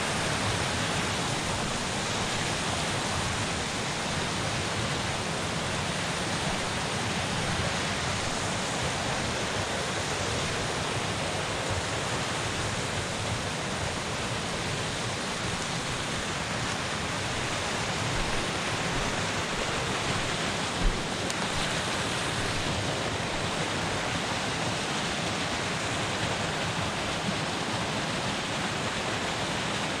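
Rain-swollen forest creek rushing over small falls and torrents: a steady, even rush of water. One brief low thump about two-thirds of the way through.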